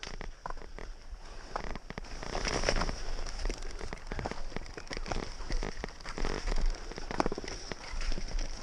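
Ski touring heard through a body-worn camera: skis and poles crunching and clicking in wet snow, with dense irregular patter like wet snow hitting the camera, over a low wind rumble.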